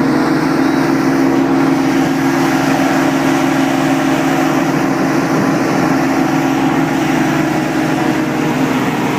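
Tractor-driven wheat thresher running steadily at working speed, its drum and belt-driven fan humming together with the tractor's diesel engine in one loud, unchanging hum.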